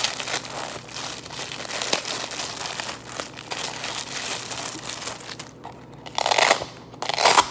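Packaging being crinkled and handled as the handcuffs are unwrapped, a steady crackle with two louder crinkling bursts, about six seconds in and near the end.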